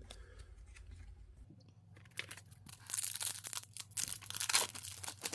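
A hockey card pack's wrapper being torn open and crinkled, a dense crackling that starts about two seconds in and runs for about three seconds.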